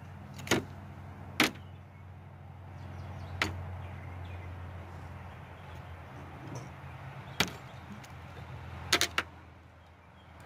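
Handling noise from a handheld phone: a handful of sharp, irregularly spaced clicks and knocks, with a quick double click near the end, over a steady low hum.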